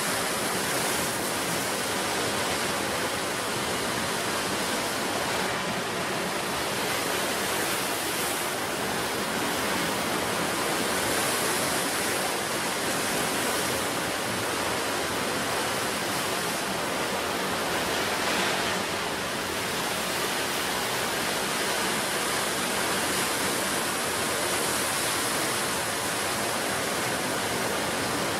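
Sea surf on a wild coast: a steady rushing wash of breaking waves, swelling slightly now and then.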